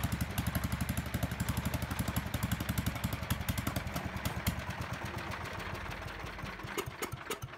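Kohler K301 single-cylinder engine on a Howard Gem rotovator idling with an even firing beat, which about halfway through weakens and breaks up into a few uneven firings, then dies away near the end: the engine is starving as its fuel runs out.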